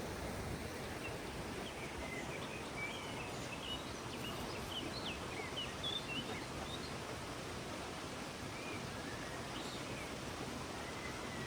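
Steady rush of flowing water, with small birds chirping in short, high calls, most thickly between about two and seven seconds in, and a few more calls near the end.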